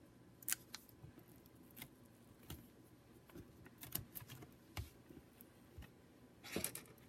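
Faint, scattered clicks and taps of fingers handling a laptop's screen panel and connector tape, with a brief scraping rustle about six and a half seconds in.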